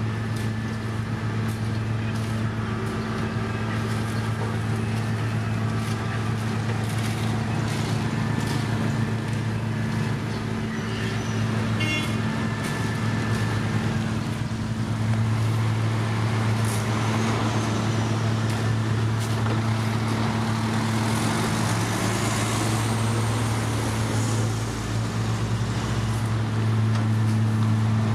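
Heavy road-construction machine engine running steadily with a low hum, with scattered clicks and knocks; the engine note shifts briefly about three-quarters of the way through.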